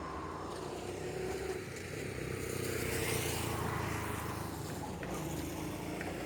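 A car passing by, growing louder to a peak about three seconds in and then fading, over a steady low rumble.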